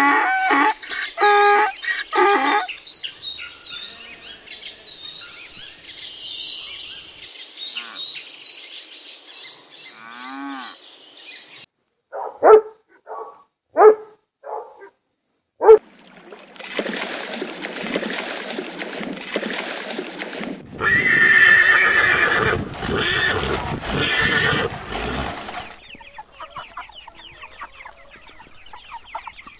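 A run of animal sounds. It opens with a donkey braying in loud pitched calls. A few seconds of high chirping follow, then about five short sharp barks from a husky, and then a long stretch of noisy rustling.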